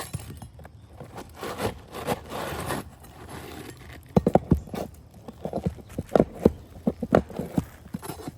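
Scraping on an asphalt-shingle roof, then from about halfway a run of irregular hammer knocks, two or three a second, as shingles are worked loose and replaced.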